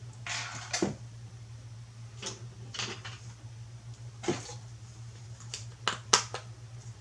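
Hands handling a homemade cardboard switch box and its parts: scattered light clicks, taps and rustles, a sharp click about six seconds in, over a steady low hum.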